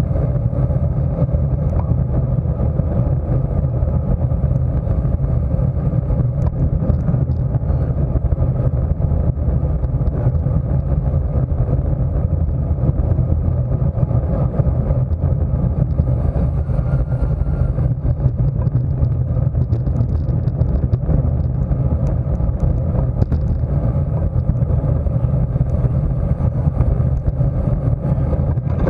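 Steady low rumble of wind buffeting a bike-mounted camera's microphone as a road bicycle is ridden at race speed, with road noise beneath it.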